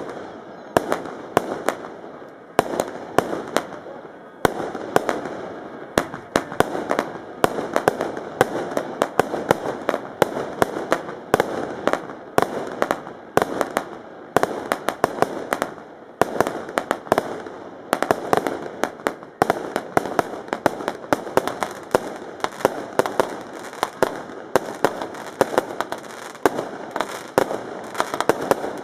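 Daytime festival fireworks barrage: a long run of sharp firecracker bangs, several a second at irregular spacing, over a continuous crackle.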